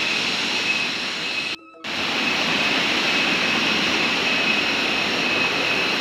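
Steady rush of a rocky stream and the tiers of a waterfall, a broad even wash of water noise that cuts out briefly about a second and a half in.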